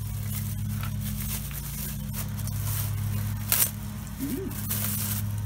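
Clear plastic wrapping crinkling and rustling in short bursts as a hatchet is unwrapped from it, over a steady low hum. A brief low voice sound comes about four seconds in.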